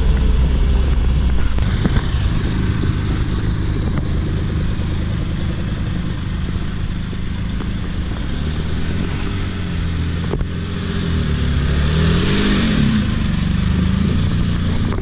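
Jaguar XJ220's twin-turbo V6 engine running as the car drives, heard first from inside the cabin and then from the roadside as the car pulls away. The engine pitch rises and falls near the end.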